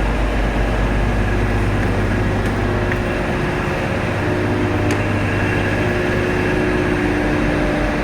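Steady mechanical drone of railway station background noise: a low hum with a few faint steady pitched tones over it.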